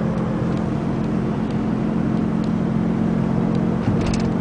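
A 2002 VW Beetle's 1.9 L four-cylinder turbodiesel and road noise, heard from inside the cabin while driving: a steady low hum, with a short rattle about four seconds in.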